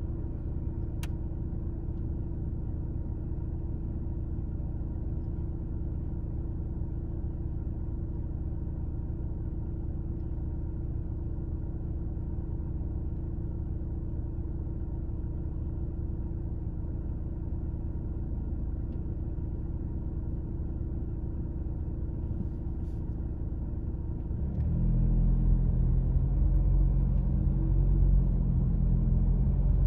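Car driving, a steady low rumble of engine and road noise that grows louder and rougher near the end.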